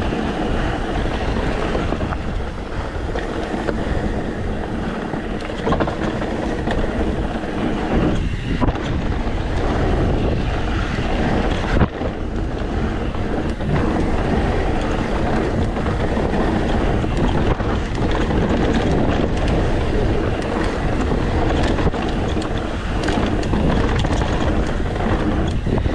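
YT Decoy mountain bike descending a rocky dirt trail at speed: tyres rumbling and the bike rattling over rocks and roots, with wind on the microphone. A sharper knock about twelve seconds in.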